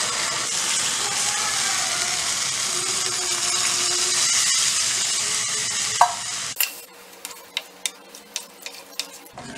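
Masala paste and banana flower sizzling in hot oil in a clay pot, a steady hiss. About six and a half seconds in, the hiss drops away suddenly, and a wooden spatula clicks against the clay pot several times as the curry is stirred.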